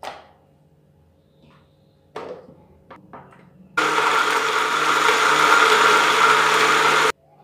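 Electric blender running for about three seconds, blending ice into a thick bael fruit shake, then stopping abruptly. Before it starts there are a few short knocks and clicks.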